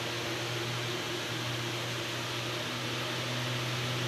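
Steady low hum with an even hiss of background room noise; no distinct event stands out.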